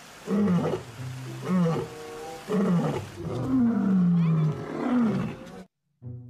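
Lions roaring: a run of short roars about one a second, each falling in pitch, then a longer drawn-out falling roar and one more short one before it cuts off abruptly near the end.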